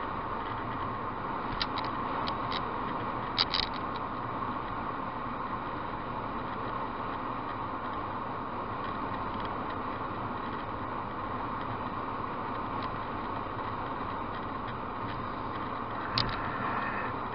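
Steady road and tyre noise inside a car travelling at motorway speed. A few short clicks or rattles sound about two to four seconds in, and one more near the end.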